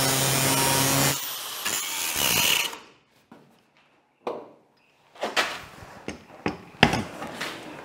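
Angle grinder with a thin cutting disc slicing through the sheet steel of a 1951 Chevy truck's roof pillar, cutting away an overlap to make a pie cut. The cut stops about a second in and the grinder runs down over the next second or so. After a short quiet, hands push and rub on the steel panel, with light clicks and one sharper knock near the end.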